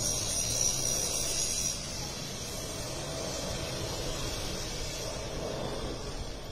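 Distant large jet airliner on its landing approach: a steady rushing engine roar with a high hiss that eases off about two seconds in.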